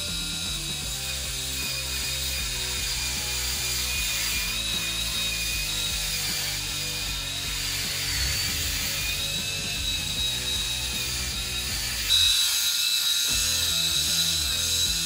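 Pitbull Gold Pro electric rotary head shaver running, a steady motor whine and buzz as its blades pass over a freshly shaved scalp. About twelve seconds in the whine gets louder and higher. Background music plays underneath.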